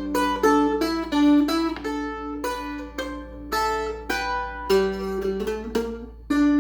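Blueberry mandolin played in a sound demo: a slow melody picked one note at a time, about two notes a second, each note ringing on. A faint steady low hum lies underneath.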